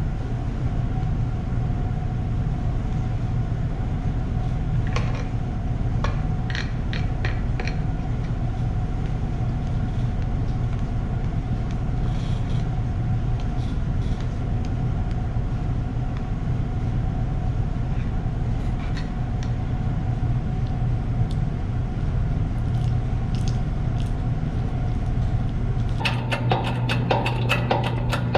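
A steady mechanical hum with a few light clicks and taps. About two seconds before the end, a fast run of sharp metallic clicks begins.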